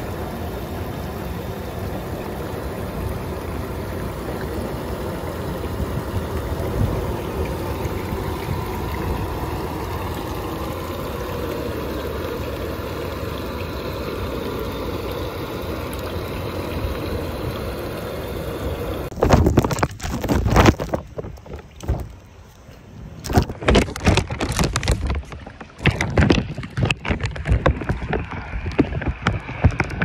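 Pool water heard through a phone sealed in a plastic bag for underwater filming: a steady muffled rush of water, then, about two-thirds of the way in, irregular loud splashes and knocks.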